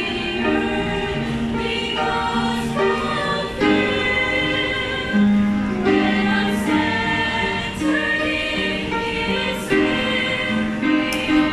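Youth choir of mixed voices, mostly girls, singing a hymn in slow held notes, accompanied by upright piano.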